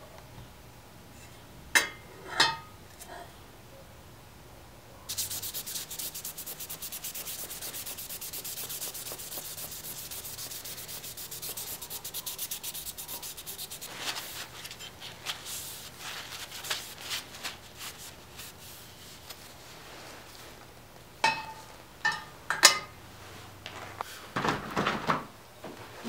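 A gloved hand rubs the surface of a freshly etched damascus steel cleaver blade in rapid, even back-and-forth strokes. The strokes start about five seconds in, run densely for about nine seconds, then slow into scattered strokes. A few sharp clicks or knocks come early and near the end; the loudest is near the end.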